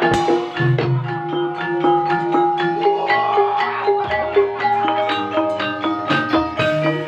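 Javanese gamelan music accompanying an ebeg (kuda kepang) dance: many quick struck notes on mallet-played keyed instruments ring over sustained lower tones.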